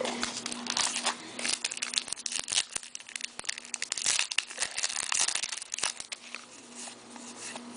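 Crinkling and tearing of a trading card pack's wrapper being opened and handled, a dense, irregular crackle that thins out near the end.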